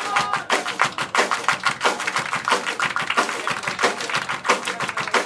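Band and crowd clapping along in a steady rhythm in a live rock song, the claps loose and not quite together, after a held sung note cuts off at the start.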